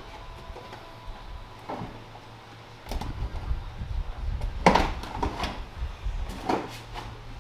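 Plastic inner fender liner of a pickup being worked loose from the wheel well: scraping and flexing with several sharp snaps as its retaining clips pop out, the loudest a little before five seconds in.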